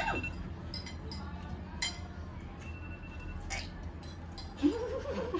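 Cutlery clinking on plates: scattered light clinks, the two loudest about two and three and a half seconds in. A short voice sound comes near the end.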